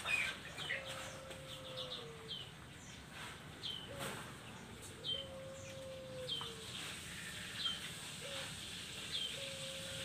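Female puter pelung, a domesticated collared dove, cooing three times. Each coo is a short note followed by a long drawn-out note that drops in pitch at the end. Other small birds chirp with short high notes among the coos.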